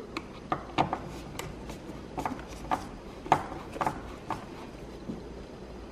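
Irregular light clicks and scrapes of a screwdriver turning out a T20 Torx screw from the plastic door-handle recess of a car door panel.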